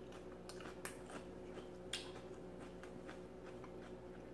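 Faint, scattered wet mouth clicks and smacks of someone eating fried chicken wings and sucking her fingers.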